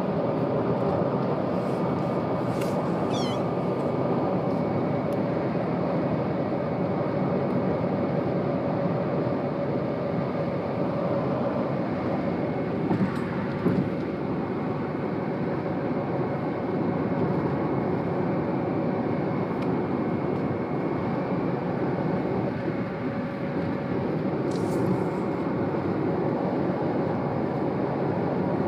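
Steady road and engine noise inside a moving car's cabin. A kitten gives a short, falling high mew about three seconds in, and another brief high sound comes near the end.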